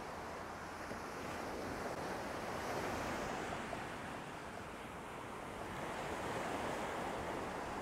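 Ocean surf breaking and washing up a sandy beach, a steady rush that swells twice, with wind on the microphone.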